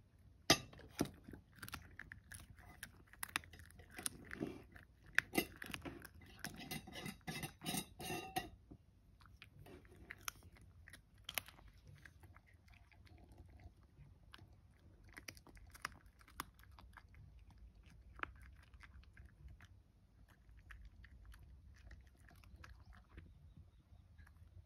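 A cat crunching and chewing a dried sardine (niboshi): dense, loud crunching for the first eight seconds or so, then sparser, fainter chewing.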